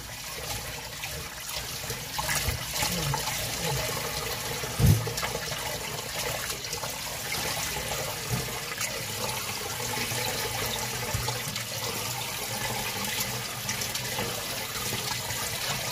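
Kitchen tap running into a stainless steel bowl of water while hands swish and rub sliced salted cucumber pickles, rinsing the salt out of them, with a single thump about five seconds in.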